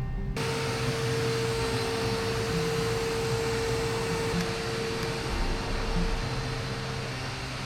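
A steady rushing, motor-like noise with a constant mid-pitched hum, cutting in abruptly just after the start.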